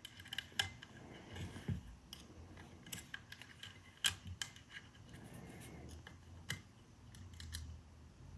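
Lock pick and tension wrench working inside a small cabinet wafer lock: faint, irregular metallic clicks and light scrapes as the wafers are raked and set.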